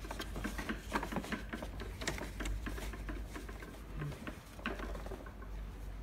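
Fabric cuff sleeve rustling and the plastic rim of an RBP-9000 blood pressure monitor's arm tube clicking and tapping in quick irregular bursts as the sleeve is pressed into its slot.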